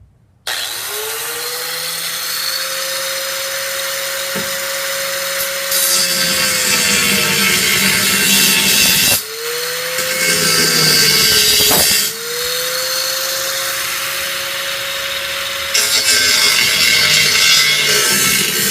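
An electric power tool spins up to a steady whine and works steel, with a harsh grinding hiss that grows louder about six seconds in and again near the end. The tool spins down and stops briefly about nine seconds in, then starts up again.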